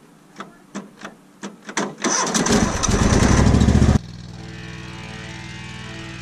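Cub Cadet garden tractor's engine being started: several sharp clicks, then the engine cranks and fires loudly for about two seconds. About four seconds in the engine cuts off abruptly and steady background music takes over.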